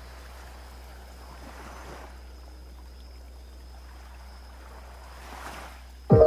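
Gentle sea waves washing onto a beach: a soft, even rush of water that swells twice. Chime-like music comes in at the very end.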